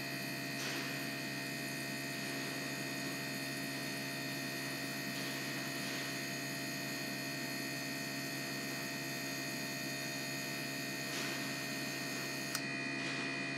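ASNU injector test bench running a static flow test: a steady hum with the injectors held wide open, spraying test fluid into the measuring cylinders. The high hiss drops away near the end.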